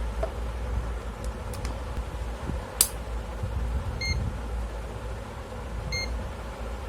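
Two short electronic beeps from an HTC DM-85T digital multimeter, about two seconds apart in the second half, after a sharp click a little earlier, over a steady low hum.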